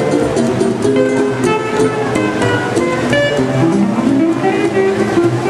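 Guitar music, a run of plucked notes.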